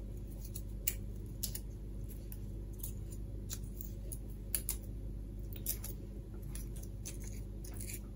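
Scattered light clicks and snips, about one or two a second, from hands working a thin coax cable end and heat-shrink sleeve, over a steady low hum.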